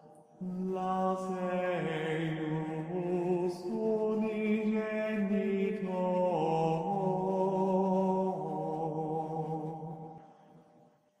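Slow, chant-like background music of long held notes, moving to a new pitch every second or two. It starts about half a second in and fades out near the end.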